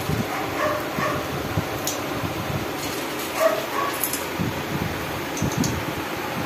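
Dogs whining and giving short yips, a few brief calls about a second in and again past the middle, over steady low background noise.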